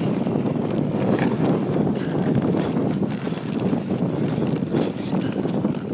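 Steady rushing noise of a moving dog sled gliding over a packed snow trail, mixed with wind buffeting the microphone.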